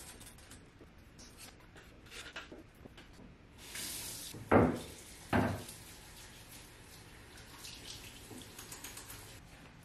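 Water running from a bathroom sink tap over hands being rinsed, after light clicks and taps of small items handled on the counter. Two sharp knocks, a little under halfway through, are the loudest sounds.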